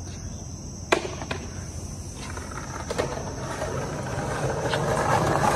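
Skateboard wheels rolling over brick pavers, growing steadily louder as the rider approaches, with a sharp click about a second in and a few fainter knocks after. A steady high insect trill, like crickets, runs underneath.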